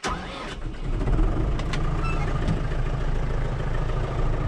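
Massey Ferguson 5440 tractor's diesel engine starting up for the first time after new injector return hoses were fitted. It comes in suddenly, catches within about a second, and settles into a steady idle.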